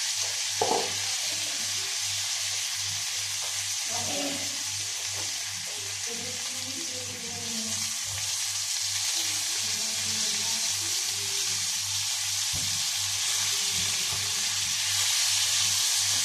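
Frozen potato pieces frying in hot margarine in a pan, a steady loud sizzle, stirred with a wooden spoon. There is a single knock about a second in.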